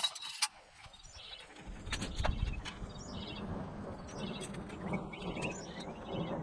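Small birds chirping over and over, with two sharp clicks right at the start and a low rumble that comes in about two seconds in and carries on.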